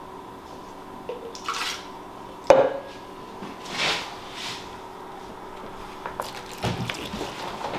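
Kitchen bowls, measuring cups and utensils being handled during cake-batter prep: a sharp knock about two and a half seconds in is the loudest sound, with a few short swishes and small clinks around it.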